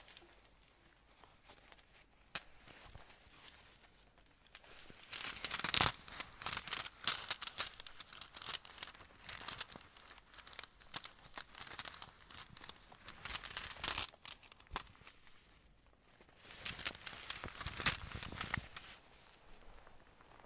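Close-up crinkling and crackling from something being handled, coming in three bouts of a few seconds each, with a single sharp click before the first.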